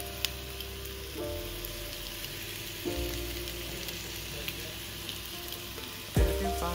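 Diced chicken frying in butter in a pan: a steady sizzle with small scattered pops. Background music with held chords plays over it, the loudest chord coming near the end.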